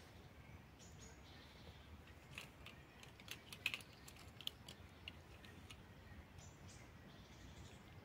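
Quiet woodland ambience: a low steady background rumble, with a short irregular run of faint sharp clicks and ticks between about two and five seconds in, and a few faint high bird notes.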